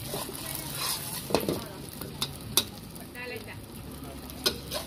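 Thai egg omelette frying in oil in a wok, with a steady sizzle. A metal spatula scrapes along the wok and clicks against it four times.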